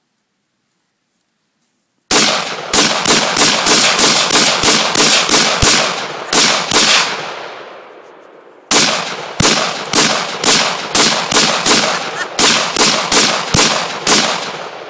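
AR-15 rifle fired rapidly, one shot per trigger pull at about three shots a second, in two long strings of around fifteen shots each with a pause of about two seconds between. Each loud, sharp crack trails off in an echo.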